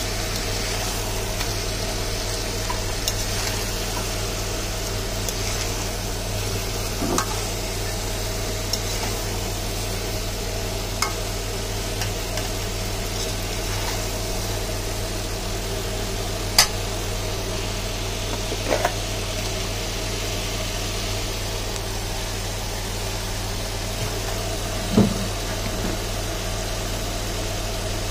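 Chicken pieces with onion and spices sizzling in a wok, with a few sharp clinks of a metal spatula against the pan as they are stirred, the loudest a little past halfway. A steady low hum runs underneath.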